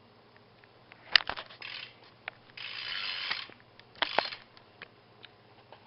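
A BMX bike being handled, with sharp knocks about a second in and again about four seconds in. Between them comes a short ratcheting buzz of the rear cassette hub freewheeling.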